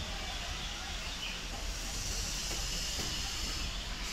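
Steady outdoor background noise: a low rumble under a high hiss that grows stronger about two seconds in, with no distinct single event.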